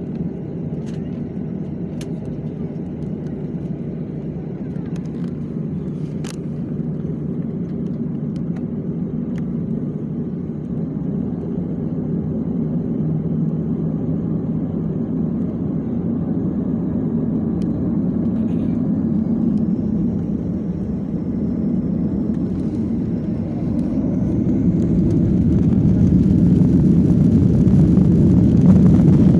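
Airliner's jet engines heard from inside the passenger cabin: a steady low hum that grows louder. Over the last ten seconds a high whine rises in pitch as the engines spool up toward takeoff thrust.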